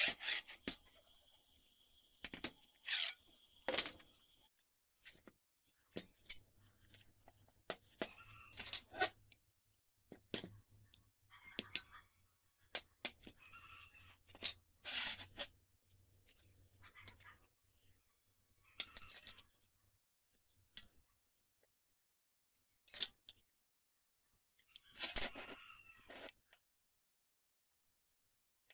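Metal workshop handling noises: the bearing carriage of a home-made angle-grinder sliding guide rolling along a square steel tube at first, then scattered clinks, knocks and short scrapes as steel pieces and a steel square are set down and moved on the workbench.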